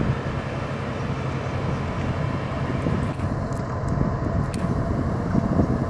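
A tugboat's diesel engine running steadily under way, a low drone.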